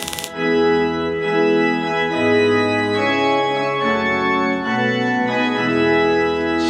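Organ music playing slow, held chords that change about once a second. The music opens just after a burst of hiss cuts off.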